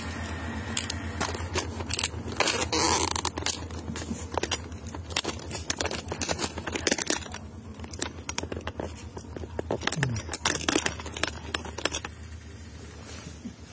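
Handling noise from a handheld phone being moved around: irregular clicks, scrapes and rustles, over a low steady hum. It grows quieter near the end.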